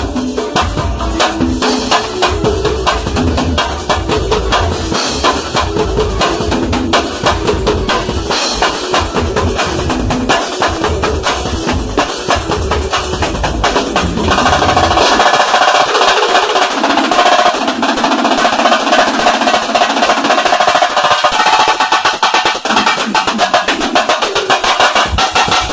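Percussion drumming at a sound check: fast, dense drum strokes over deep bass drums. About fourteen seconds in the bass drums stop, and higher-pitched hand-drum strokes, fitting a Bahian timbal, carry on alone.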